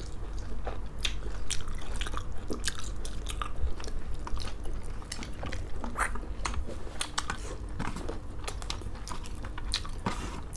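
Close-miked eating sounds: two people chewing and biting rice and chicken curry, with irregular sharp wet mouth clicks over a steady low hum.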